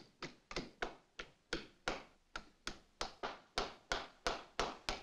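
A hammer tapping upholstery tacks through fabric into the wooden frame of a couch: quick, even taps, about three a second.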